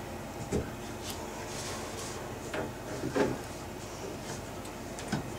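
A few light knocks and clicks of copper pipe and fitting being handled as a 45-degree copper elbow is worked onto a shower riser pipe, with the loudest knock about three seconds in.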